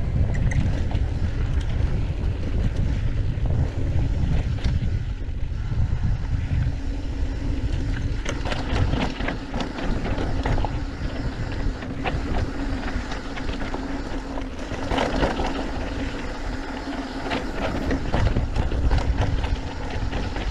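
Mountain bike rolling down a dry dirt singletrack: tyres on dirt and gravel with the bike rattling and knocking over bumps and brush brushing past, under steady wind on the microphone.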